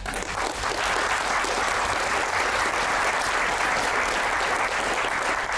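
Audience applauding: dense, steady clapping from a theatre crowd.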